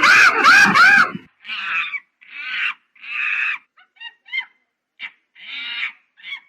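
Monkey calling: a loud run of rapid, rising-and-falling chattering calls, then a string of short hoarse calls with a few brief squeaks between them.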